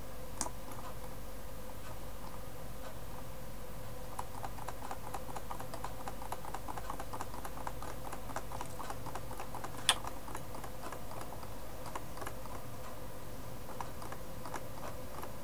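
Computer mouse scroll wheel ticking in quick runs as a web page is scrolled, with a few sharper single mouse clicks, about half a second in and near ten seconds in, over a steady electrical hum.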